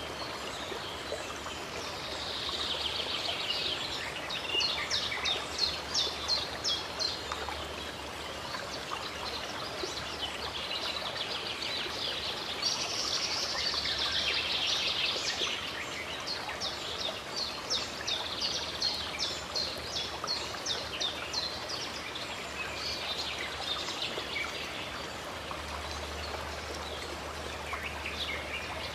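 Running stream water with songbirds singing over it: warbling phrases and series of quick, evenly repeated high chirps, about three a second, that come and go several times.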